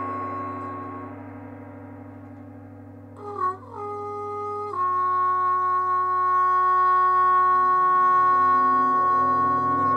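Free-improvisation music: a steady low drone, over which a trombone comes in about three seconds in with a wavering slide, holds a note, steps down to a lower one near five seconds in and sustains it.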